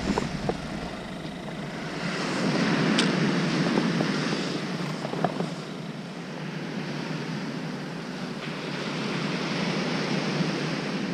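Surf washing onto a sandy beach, the rush rising and falling in slow swells, with wind on the microphone. A few light clicks in the first half come from handling a fishing rod and spinning reel.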